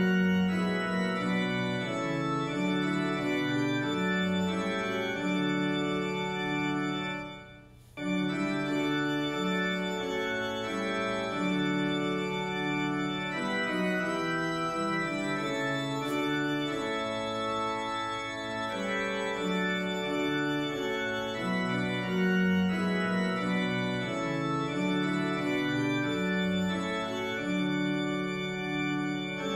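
Organ music playing slow, held chords. It fades almost away about seven seconds in and starts again abruptly a moment later.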